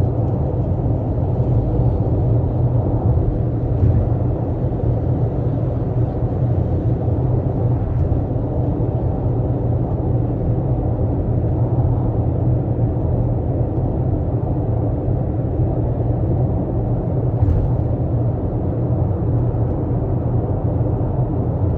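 Steady low rumble of a 12th-generation Toyota Corolla Altis, with a couple of faint ticks.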